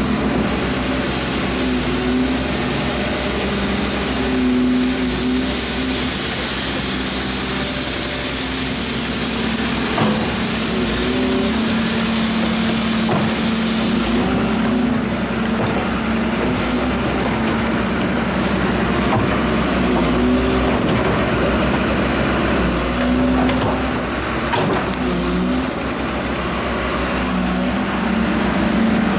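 Diesel engine of a Hyundai R140W wheeled excavator idling steadily, its hum wavering slightly in pitch.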